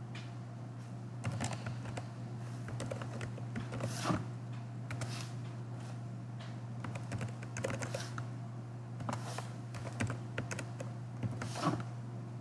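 Typing on a computer keyboard: irregular, quick key clicks in short runs, over a steady low hum.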